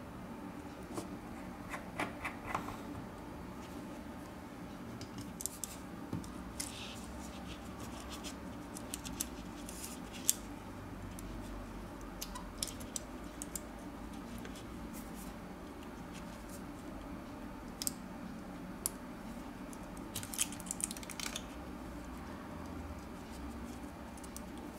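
Small metal hand tools, a precision screwdriver and tweezers, clicking, tapping and scraping against a smartphone's internal brackets and circuit board: scattered light ticks in small clusters, the sharpest about ten seconds in, over a steady low hum.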